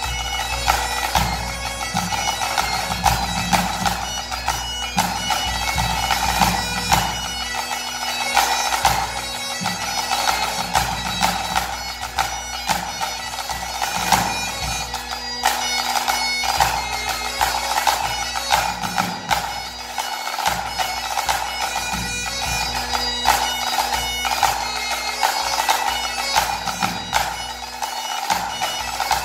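Great Highland bagpipe playing a tune over its steady drones, with a pipe-band snare drum and tenor drum playing along.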